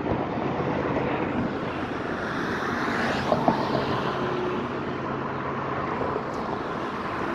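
Steady road traffic noise from passing vehicles, swelling a little about three seconds in.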